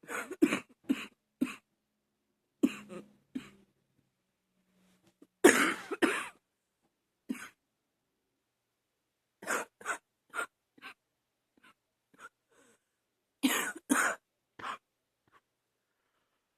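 A woman coughing in repeated fits of short barking coughs, several seconds apart, the loudest about five and a half seconds in, with a few faint coughs between. An allergy cough, by her account.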